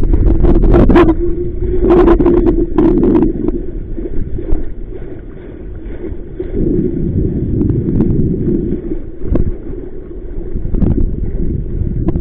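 Strong wind buffeting the microphone in gusts, with choppy water splashing and knocking against a small inflatable boat. A steady low hum runs under it for the first few seconds and then fades.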